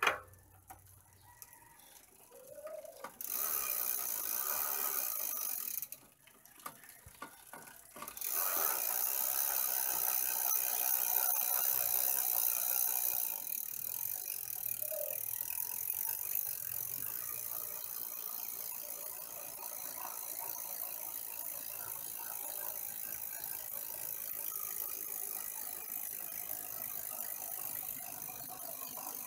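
Fat bike's rear wheel spinning free after being turned by the pedal crank, its freewheel ratchet clicking and the chain running, with no tyre rubbing on the fender. It starts a few seconds in, stops briefly, then runs on steadily.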